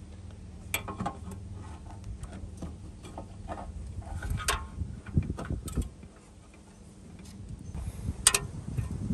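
A cone air filter being handled and pushed into a plastic airbox: scattered clicks, knocks and brief rubbing sounds, the sharpest click near the end, over a steady low rumble.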